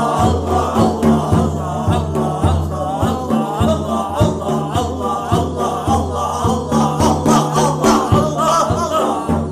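Dhikr chanting: a group of voices repeating the name 'Allah' in a pulsing rhythm over a sustained low tone.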